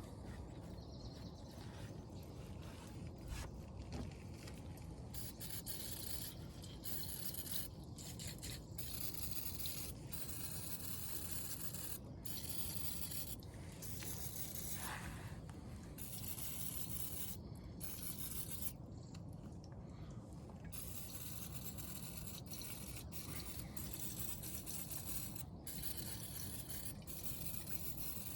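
Aerosol can of brake parts cleaner spraying in hissing bursts of a few seconds each, with short breaks between them, as brake parts are cleaned.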